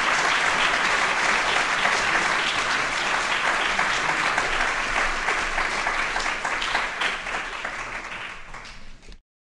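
Lecture audience applauding, dying down over the last couple of seconds before the sound cuts off abruptly.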